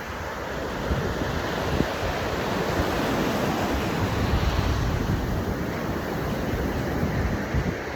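Ocean surf breaking and washing on the shore, a steady rush of rough water, with wind buffeting the microphone.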